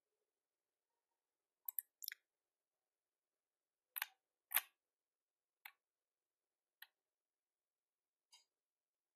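Computer mouse clicking in a quiet room: two quick double clicks about two seconds in, two louder clicks about half a second apart near the middle, then a few fainter single clicks about a second apart.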